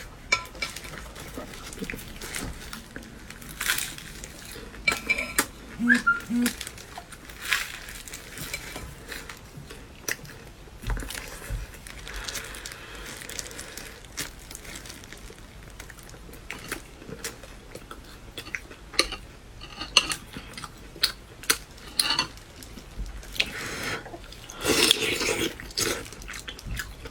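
Eating utensils clinking and tapping against bowls and plates in irregular, scattered clicks during a meal, with a denser run of clatter near the end.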